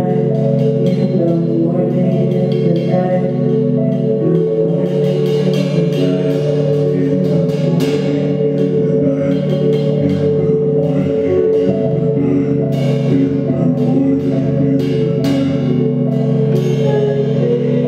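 Improvised live music: keyboard and synth holding low, steady chords, with quick, sharp percussive hits scattered over them, thickest in the middle.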